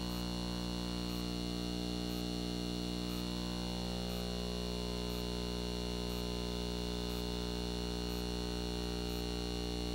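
Steady electrical hum made of many unchanging tones, with faint high ticks about once a second.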